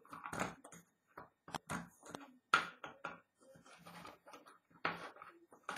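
Irregular soft clicks, taps and rustles of objects being handled close to the microphone, with a sharper tap near the end.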